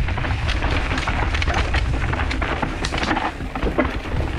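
Mountain bike descending a trail at speed: wind rumbling on the microphone, with a rapid run of clattering and crackling from the tyres and bike on the rough ground.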